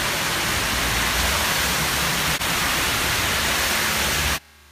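Cars driving through deep floodwater, their tyres throwing up spray in a steady loud rushing splash with a low rumble of engines beneath. The sound cuts off suddenly near the end.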